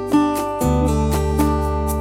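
Background music: strummed and plucked acoustic guitar over a steady bass line, with a chord change a little after half a second in.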